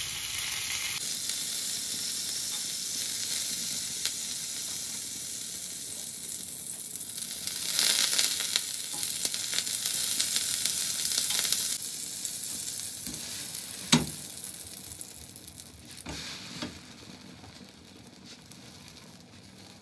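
Butter sizzling as it melts on a hot flat griddle pan, with a steel spoon spreading it across the pan. The sizzle swells louder in the middle, there is one sharp knock about fourteen seconds in, and the sizzle fades toward the end.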